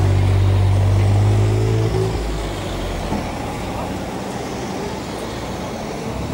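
A steady low machine hum cuts off about two seconds in, leaving quieter street background noise, and starts again near the end.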